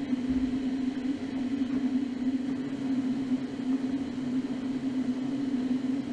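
Faucet water running in a steady full stream and splashing into a sink drain, with a steady low hum under it. The flow holds at full pressure with no drop-off, even with another sink and a toilet running.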